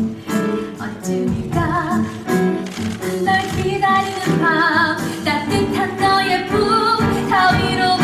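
A woman singing a show tune over instrumental accompaniment, with vibrato on the held notes.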